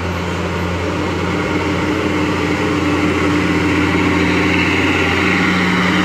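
Diesel engine of a heavily loaded tandem-axle cargo truck labouring uphill under load, a steady low drone that grows slowly louder as the truck comes closer.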